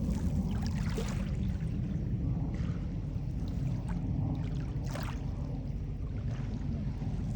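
Wind buffeting the microphone outdoors, a steady low rumble, with a few short hissing rushes now and then.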